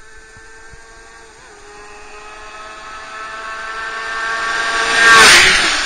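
Sport motorcycle approaching at a steady speed and passing close by. Its engine note grows louder, peaks with a rush of wind noise about five seconds in, then drops in pitch as it goes past.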